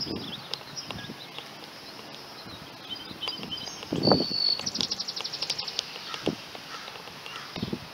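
Birds chirping outdoors, with a rapid trill of evenly spaced notes about midway. A soft thump about four seconds in.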